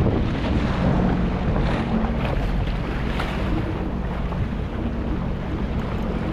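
Jet ski engine running steadily under heavy wind buffeting on the microphone, with choppy sea water splashing against the hull.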